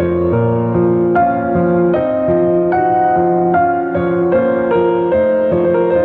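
Solo piano playing a slow, gentle instrumental piece, with notes and chords changing about twice a second.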